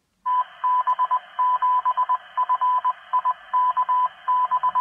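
A 2 m amateur radio repeater's Morse code identification heard through the transceiver's speaker: a tone of about 1 kHz keyed in short and long elements over steady FM receiver hiss. It is the repeater answering, the sign that the 3-watt transmission reached it.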